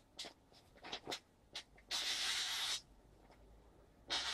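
A knife freshly stropped on green chromium-oxide compound slicing through a hand-held sheet of magazine paper: a short papery hiss about two seconds in and another starting near the end, with small paper rustles and ticks before. It is a sharpness test: the quieter the hiss, the cleaner the edge cuts, and this cut sounds a little quieter.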